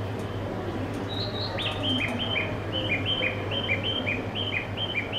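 Rapid bird-like chirping that starts about a second in: short notes alternating between a higher and a lower pitch, about five a second, in a very regular pattern. A low steady hum runs underneath.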